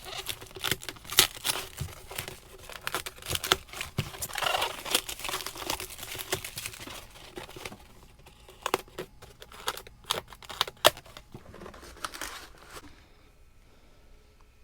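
Packing material being crumpled and torn open by hand, with dense rustling and sharp crackles that die away about thirteen seconds in.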